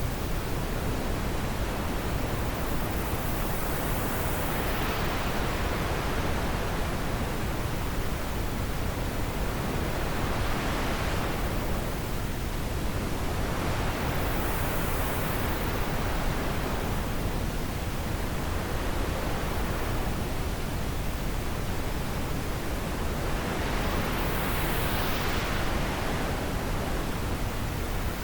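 Wind blowing steadily, swelling in soft gusts every several seconds.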